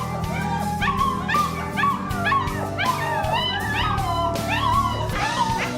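Background music with steady sustained tones underneath. Over it, German Shepherd puppies give short, high yips and whines, several a second, while they play.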